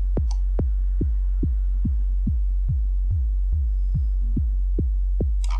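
Synthesized kick drum from the Vital soft synth, a sine wave given a steep drawn pitch envelope of about 40 to 50 semitones, repeating steadily about two and a half times a second. Each hit is a short click that drops fast into a deep sub tone, which carries on under the next hit.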